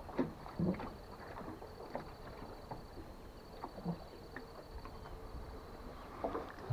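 Light, scattered knocks and water lapping around an aluminium jon boat, over a faint, steady, high pulsing insect trill.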